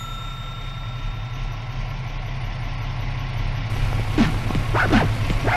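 An engine idling with a steady low rumble, with the ring of a small struck bell fading out over the first few seconds. About four seconds in, a dog starts barking in a quick run of barks.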